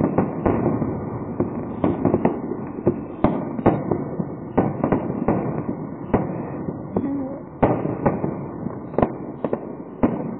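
Fireworks finale: aerial shells bursting in rapid, irregular succession, about two sharp bangs a second, over a continuous rumble of overlapping reports.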